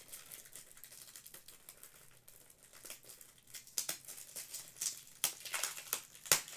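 Crinkling and rustling of trading-card packaging being handled, with many small clicks. It grows busier in the second half, and one sharp click comes near the end.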